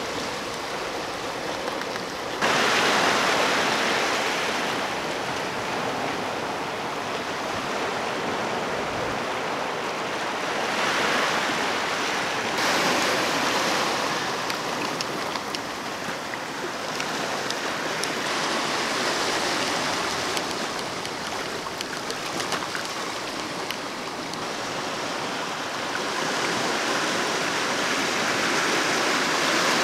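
Sea surf washing over a rocky shore: a steady rush of water that swells and eases every few seconds, with sudden jumps in loudness about two seconds in and again about twelve seconds in.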